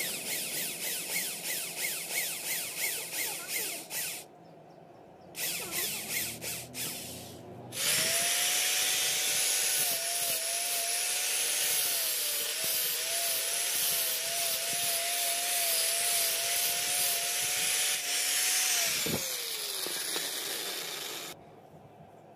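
Corded electric drill boring through a small metal strip in a grating, pulsing run, pausing about four seconds in and then drilling again briefly. An angle grinder then starts and grinds the metal steadily for about eleven seconds; it is switched off and its whine falls as it spins down.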